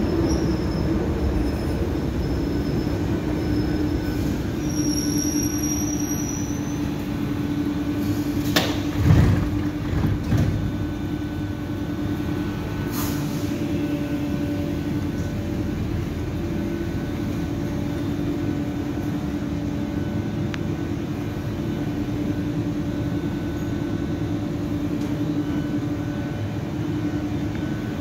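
Athens Metro train coming to a stop at the platform, with a thin high brake squeal over the first few seconds and two loud knocks about nine and ten seconds in. It then stands with a steady electrical hum from its onboard equipment.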